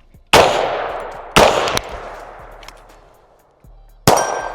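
Three gunshots: two rifle shots about a second apart, then, after a pause of about two and a half seconds for the transition, one pistol shot. Each shot has a long echoing tail.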